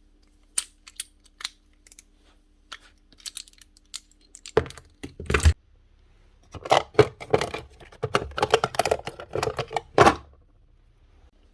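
Small hard parts and tools clicking and clattering as they are handled: scattered single clicks, then a louder clatter about halfway in, then a quick irregular run of clicks and rattles that stops about ten seconds in.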